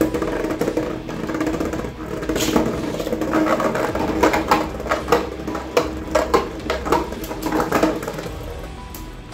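Two Beyblade Burst tops, Guilty Longinus and Rage Longinus, spinning and clashing in a plastic stadium. A steady whirring hum runs under frequent sharp clacks as they collide, fading near the end as the tops slow down.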